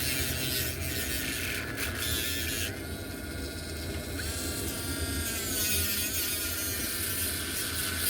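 A small electric motor running with a steady buzz and a thin whine; the whine's pitch steps up about four seconds in and wavers after that.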